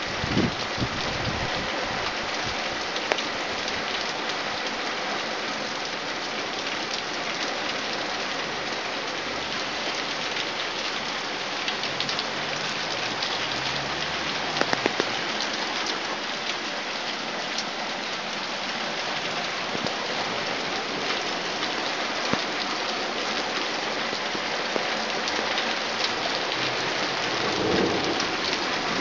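Torrential rain pouring down steadily, with scattered sharp drip ticks and a low rumble of distant thunder in the background.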